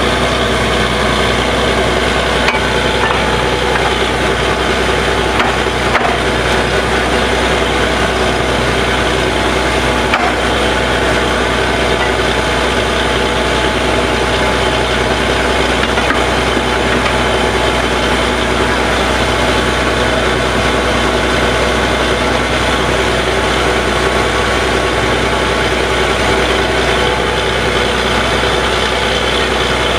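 Borewell drilling rig's engine running steadily, a loud, even drone with a few faint knocks about 2.5, 6 and 10 seconds in.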